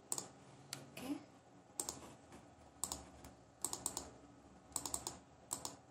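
Computer keyboard and mouse clicking in short clusters of two to four clicks, about one cluster a second.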